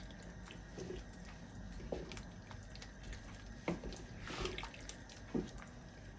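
Wooden spoon stirring a wet, stew-like pan of vegetables and barley, with soft liquid sloshing and a few faint knocks of the spoon against the stainless steel pan.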